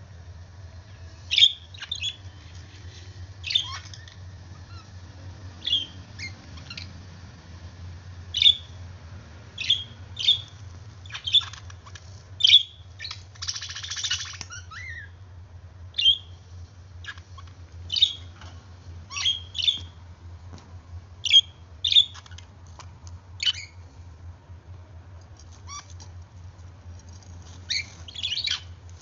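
Pet budgerigars giving short, sharp chirps and squawks every second or two, with a longer scratchy chatter about halfway through. A steady low hum runs underneath.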